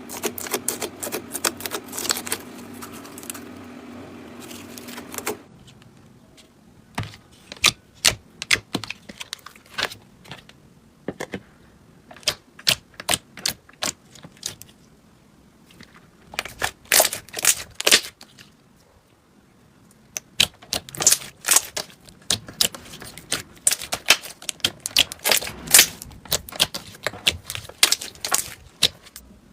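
Slime being squeezed and poked by hand, giving clusters of sharp, quick clicking pops and crackles with short quiet gaps between them. For the first five seconds or so a steady low hum runs under the clicks, then it cuts off suddenly.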